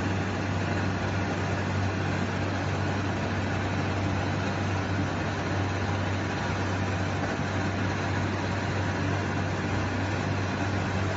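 Steady hum and whir of running machinery, with a strong, constant low hum underneath and no change in level.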